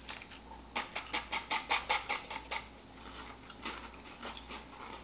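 Thin, crisp Leibniz butter biscuits being bitten and chewed. About a second in comes a quick run of about ten sharp crunches, roughly five a second, and after that quieter chewing.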